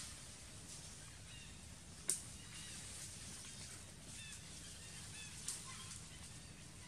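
Faint outdoor ambience with short high chirping calls, repeated several times. Two sharp clicks, the louder about two seconds in and a smaller one about five and a half seconds in.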